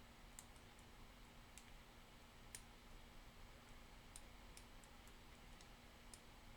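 Faint, irregular sharp clicks of a lock pick working the pins of a challenge lock built from an old Kwikset pin-tumbler cylinder, roughly ten in a few seconds.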